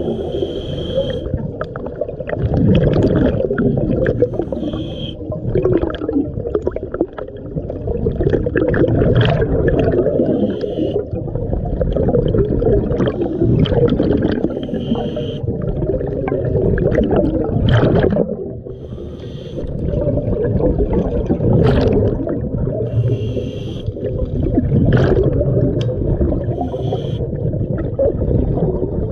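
Scuba diver's breathing heard underwater: a short regulator hiss on each inhale every four or five seconds, between long rumbling gurgles of exhaled bubbles.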